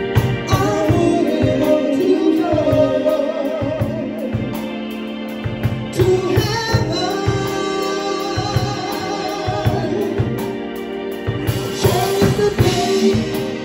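Live band playing: a female lead voice singing over electric bass, drum kit and keyboard, with a steady drum beat.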